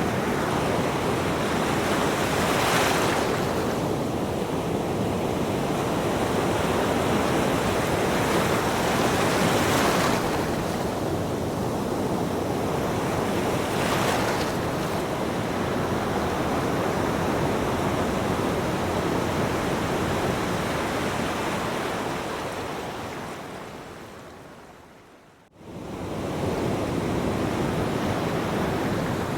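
Ocean waves washing in as a steady surf, with a few louder breaking waves swelling up now and then. About three-quarters of the way through the surf fades almost to nothing, then comes back in abruptly.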